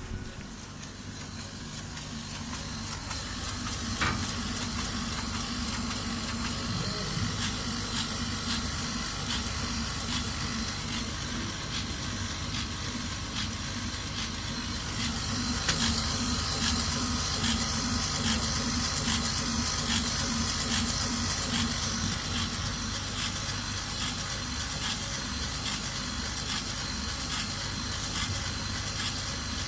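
Kamach 1290 CO2 laser cutting machine running: a steady hiss with a high thin whine, a pulsing low hum and frequent short clicks. It grows louder over the first few seconds and again about halfway through.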